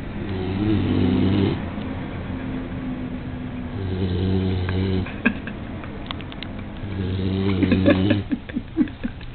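Snoring from a sleeper lying on its back: three droning snores about three seconds apart, with fainter breathing between them and a few short clicks near the end.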